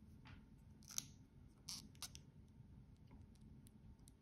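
Faint handling noise: a few soft clicks and a short rustle as a wristwatch with a leather strap and steel buckle is turned over in the hands.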